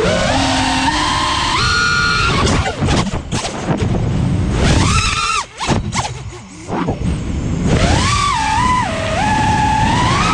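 FPV racing quadcopter's four brushless motors (Brother Hobby R6 2207 1800kv on a 6S lipo) whining as the props spin, their pitch stepping and gliding up and down with the throttle, over wind rush on the onboard camera's microphone. The whine drops away briefly about halfway through, then climbs again.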